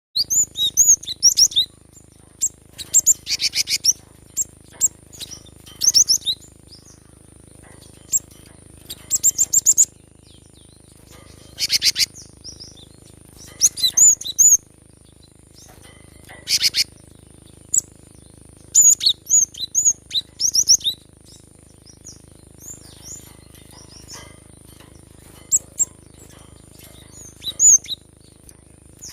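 Cinereous tit (gelatik batu) singing vigorously in bursts of sharp chirps and fast rattling trills, separated by short pauses. A faint steady high tone and a low hum run underneath.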